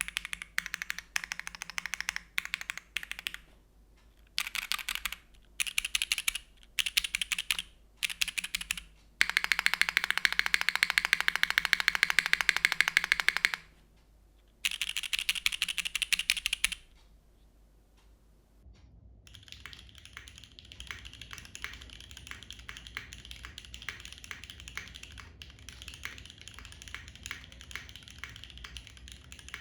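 Typing on a Geonworks Frog Mini mechanical keyboard with lubed Gateron Everfree Curry linear switches, aluminium plate and GMK keycaps: bursts of keystrokes with short pauses and a long, fast unbroken run about ten seconds in. After a short lull, about two-thirds of the way through, the typing goes on quieter and more even, as picked up by a camera's built-in microphone with a low hum and hiss under it.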